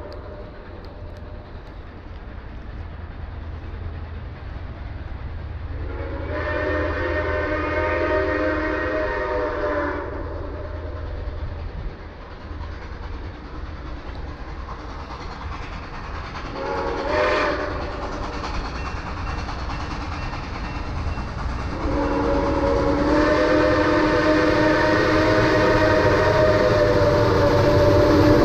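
Steam whistle of Grand Canyon Railway 2-8-2 locomotive No. 4960 sounding for a grade crossing, each blast a chord of several notes: a long blast about six seconds in, a short one at about seventeen seconds, and a long last blast from about twenty-two seconds on. Under it a low rumble from the locomotive working upgrade grows louder as it approaches.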